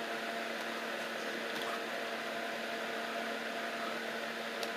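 Electric fan running in the room: a steady hum with an even whir of air.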